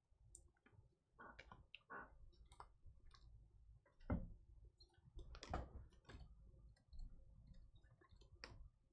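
Faint scattered clicks and light taps of glossy trading cards being handled and put down, with a dull knock about four seconds in.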